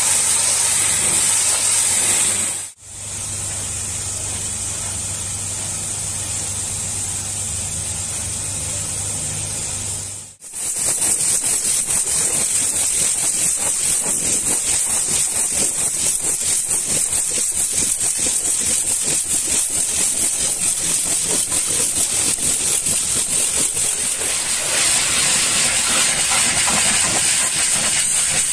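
High-pressure washer jet hitting a muddy truck's body panels and tyre: a steady, loud hiss of spray with water spattering. It breaks off sharply twice, about three and ten seconds in. A low steady hum lies under it until the second break.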